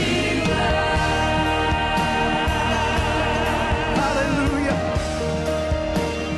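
Gospel worship music: singing voices holding long, wavering notes over a steady instrumental accompaniment.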